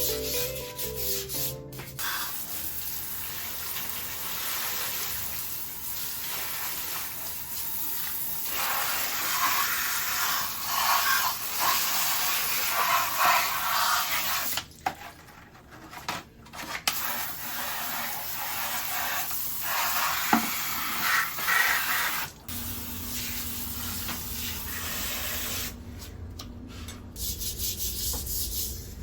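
Scrubbing and rubbing noise of cleaning, in several short cut segments with a few quick drops. A steady low hum takes over about three quarters of the way in.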